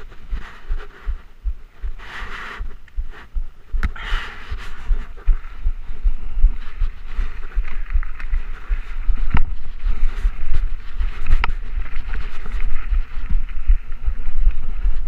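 2013 Trek Rumblefish Pro mountain bike ridden over dirt singletrack, heard from a chest-mounted camera: tyre noise on the dirt, the bike rattling, a few sharp clicks, and low thumping bumps on the microphone. It grows louder from about halfway in as the bike speeds up.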